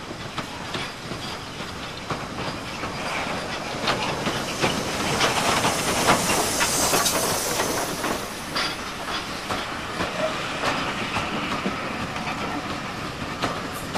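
Caledonian Railway 0-6-0 steam locomotive No. 57566 passing slowly with a steam hiss, loudest as the engine goes by about six seconds in. Its coaches then roll past, wheels clicking over the rail joints.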